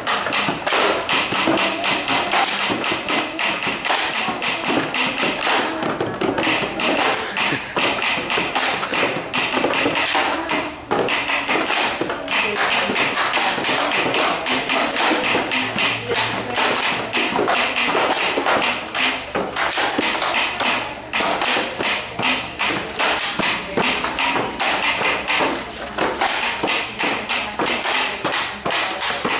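Cardboard box drums (Rubbabox) played by hand in a fast, continuous rhythm of slaps and taps.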